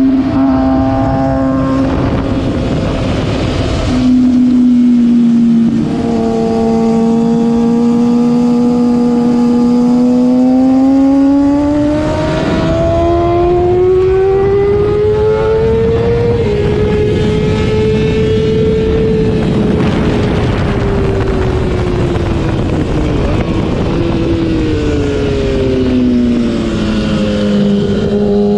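Sportbike engine at full throttle on track, its pitch stepping at gear changes early on and then climbing steadily as the bike gathers speed. About two-thirds of the way through the pitch falls away as the rider brakes and shifts down for a corner. Wind rush on the onboard camera lies underneath.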